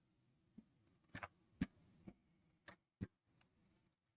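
Near silence broken by about six scattered, sharp clicks from a computer mouse and keyboard being worked at a desk.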